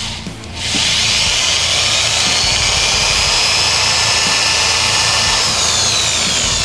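Electric hand drill boring through an aluminium flat bar, starting about half a second in and running with a steady high whine; near the end the whine falls in pitch as the drill slows.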